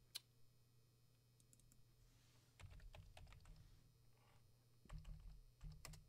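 Faint computer keyboard typing: scattered keystroke clicks in two short runs, one around the middle and one near the end, over a faint steady hum.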